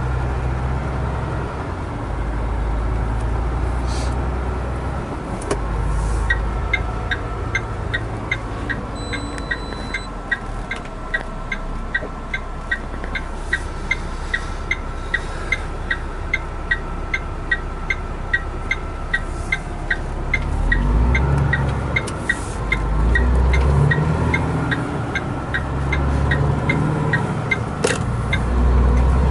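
Truck engine running, heard inside the cab, with the turn-signal indicator ticking about twice a second from about six seconds in until near the end. The engine grows louder in the last third as the truck pulls away.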